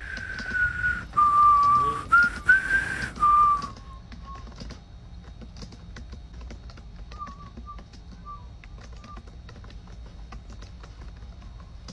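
A clear, sustained whistle lasting about three and a half seconds over a hiss. It holds one pitch, drops lower, then rises back up. Fainter short whistles and light keyboard clicks follow.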